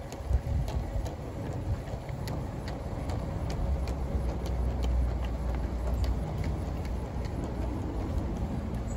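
Model garden-railway locomotive running on the track, with a faint steady hum and scattered light clicks. A low rumble of wind on the microphone runs under it, loudest midway.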